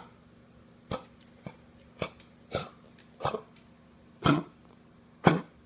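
A dog coughing: a run of about eight short, sharp coughs, one every half second to a second, the last two the loudest.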